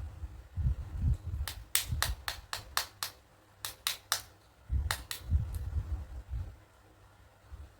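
Sharp clicks from toy dentist kit plastic pieces being handled: a run of about seven quick clicks, then three more, then two, over soft low bumps of handling.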